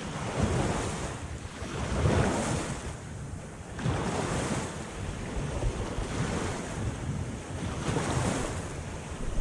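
Small waves washing at the shoreline, swelling and easing every couple of seconds, with wind buffeting the microphone.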